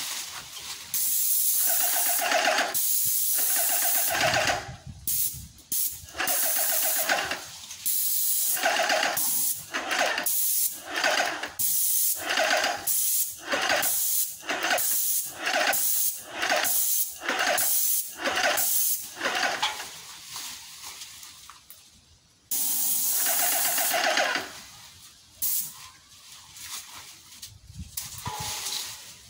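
Graco Magnum ProX19 airless paint sprayer's gun spraying paint onto a wall, hissing in bursts as the trigger is pulled and released. There are a few longer bursts early on and again near the end, with a quick run of short bursts about one a second in between.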